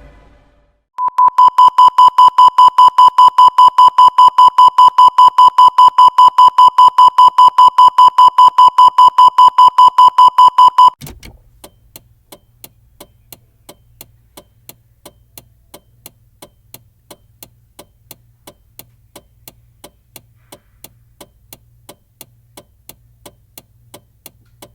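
Fictional Emergency Alert System alarm tone: a loud, buzzy beep at about 1 kHz pulsing rapidly on and off, several times a second. It cuts off after about ten seconds, and a faint, even ticking of about three ticks a second over a low hum follows.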